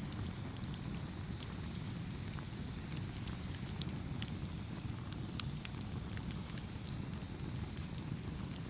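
Wood fire burning with a steady low rumble and irregular sharp crackles and pops scattered through it.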